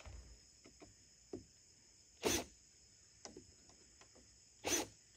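Cordless drill driving a small-headed screw into a wooden trim board in short bursts: one brief whir about two seconds in and another near the end, with light clicks of handling between.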